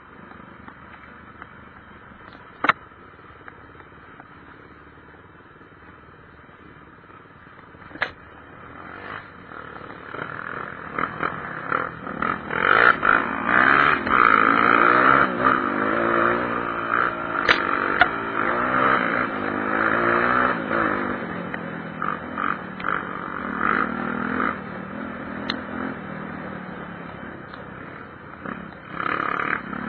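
Honda XR 250 Tornado motorcycle engine running, quiet and steady at first with a couple of sharp clicks. About ten seconds in it gets much louder, its note rising and falling for several seconds, then it eases back.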